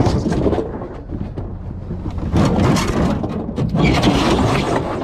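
A refrigerator being pushed into a truck: a rough scraping and rumbling with many small knocks, growing louder about halfway through.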